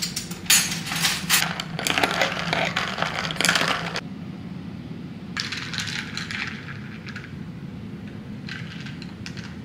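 Metal cutlery clattering and clinking as a kitchen drawer is rummaged through, cutting off suddenly about four seconds in. Later come two short airy slurps through a straw from an iced drink.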